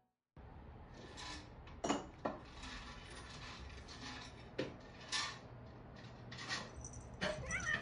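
Several sharp knocks and thuds over a low room hum: cats jumping and landing on wooden furniture. Near the end a cat starts a wavering cry.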